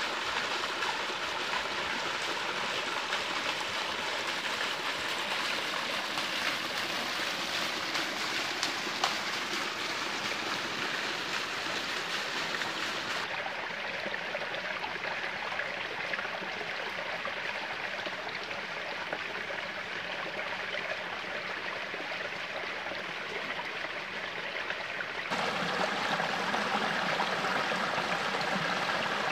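Water of a small rocky stream: a steady splashing trickle pouring between rocks into a pool, going duller about halfway through, then a louder, fuller rush of a small cascade over boulders near the end.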